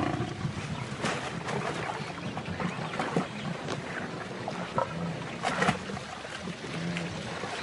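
Water splashing and sloshing as a lioness attacks a wildebeest in a shallow, muddy creek, with several sharper splashes among the churning.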